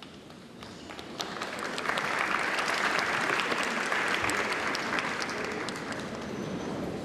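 Audience applauding, rising about a second in, fullest in the middle and easing off toward the end.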